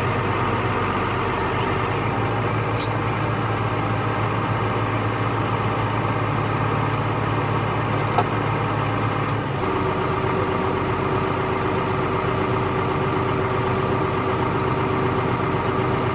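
Tractor engine pulling a grain cart, running steadily. Its engine note shifts about nine and a half seconds in.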